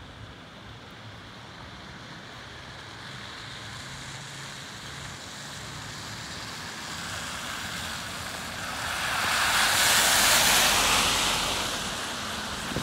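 An SUV driving past on a wet, slushy road, its tyres hissing through the slush; the hiss builds slowly, is loudest about ten seconds in, then falls away.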